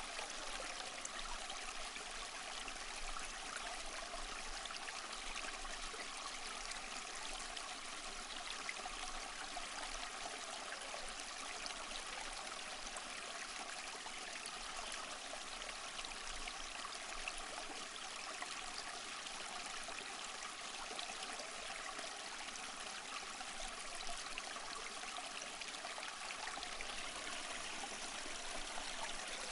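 A small stream flowing, its water running over and splashing between rocks in a steady, even rush that never breaks off or changes.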